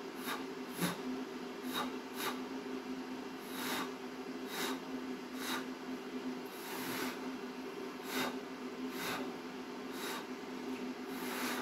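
A person blowing short, repeated puffs of breath onto wet poured acrylic paint, about one puff a second, to push it outward into a bloom. A steady low hum runs underneath.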